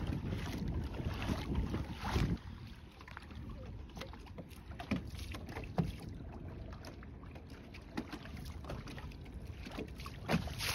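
Small waves lapping and slapping against a boat's hull, with scattered light knocks. Wind buffets the microphone for the first couple of seconds, then eases.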